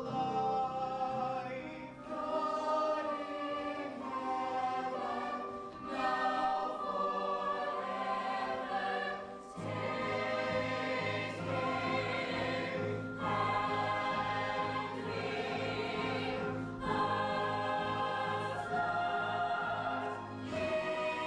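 A stage-musical ensemble singing together in chorus, with long held notes. A fuller, lower part joins about halfway through.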